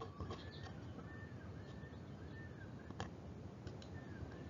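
Faint, short chirps repeating about twice a second, like a small bird. There is a single click about three seconds in.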